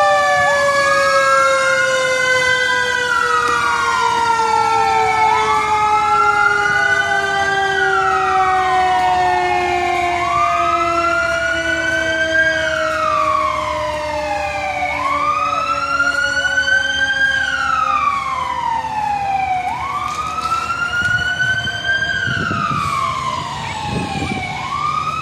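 Fire engine siren wailing, rising quickly and falling more slowly in a cycle of about every four seconds. A lower siren tone slides slowly down in pitch beneath it.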